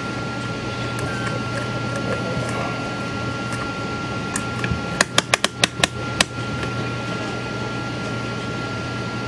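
Ratchet of an Ollie Baker-type mainspring winder clicking about seven times in quick succession, about five seconds in, as the crank winds a clock barrel mainspring. A steady low hum runs underneath.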